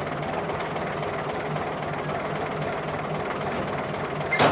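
Truck engine running steadily with a low drone, with a sharp knock near the end.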